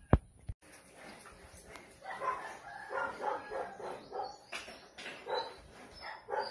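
A dog barking and yipping in a run of short, irregular calls from about two seconds in. The run is preceded by a sharp knock at the very start.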